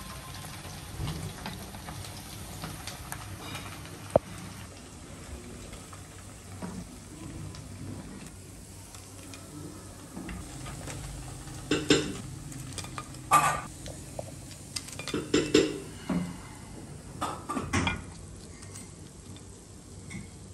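Chicken-and-potato pieces deep-frying in hot oil in a metal kadai: a steady sizzle, with a wooden spatula stirring and scraping the pan. In the second half comes a run of sharp clatters and knocks, the loudest sounds.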